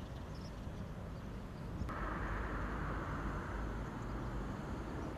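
Outdoor ambience of distant road traffic over a low rumble. About two seconds in, the background changes abruptly to a louder hiss that slowly fades.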